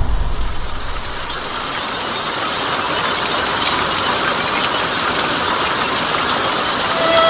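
The low rumble of a boom dies away over the first second, giving way to a steady hiss with faint rapid ticking: an atmospheric sound effect in the show's soundtrack.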